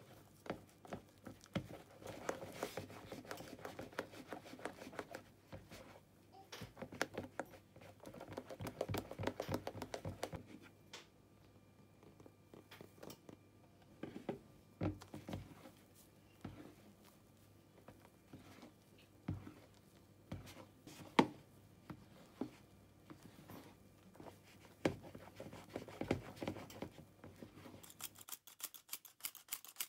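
Silicone spatula folding whipped egg-white meringue into beaten egg yolks in a bowl: faint wet squelches with irregular scrapes and taps of the spatula against the bowl. Near the end, a metal hand-operated flour sifter starts ticking rapidly as cake flour falls through it.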